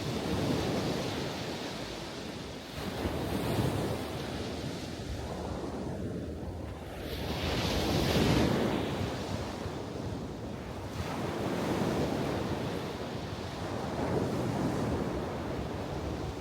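Ocean waves breaking and washing in, as slow surges of noise a few seconds apart, the loudest about eight seconds in.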